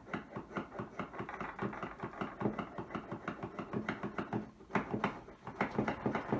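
Bassoon reed tip profiler at work: its blade carriage is swept rapidly back and forth over the cane, shaving it in short scraping strokes at about five a second. The sound is the reed's tip being thinned down to playing thickness.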